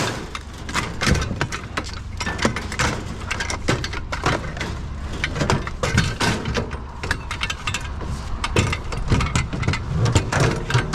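Chairs and scrap metal clattering, knocking and scraping as a chair is wedged into a fully loaded scrap trailer: a busy run of sharp knocks and rattles.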